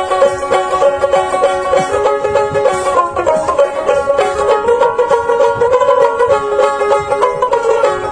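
Background music: a quick, bright plucked-string tune in a banjo style, with a steady run of fast notes.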